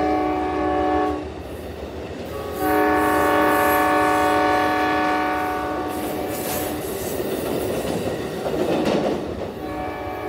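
An Amtrak passenger locomotive's multi-chime air horn plays a horn show: a blast that breaks off about a second in, then a long blast of about five seconds. The rush and clatter of the passing train follows, and the horn sounds again near the end.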